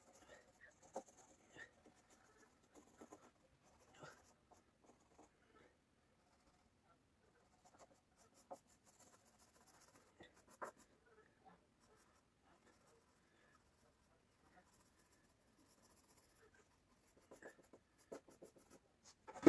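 Quiet scratching, rustling and light taps of hand work on cut wooden boards, with a sharper click about ten seconds in and a louder knock at the very end.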